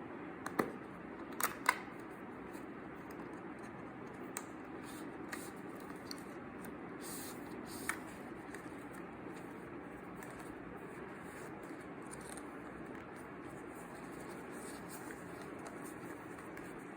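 Unboxing handling of watch packaging: a few sharp clicks and taps, a pair close together early and another about eight seconds in, with lighter ticks over a steady faint background hiss.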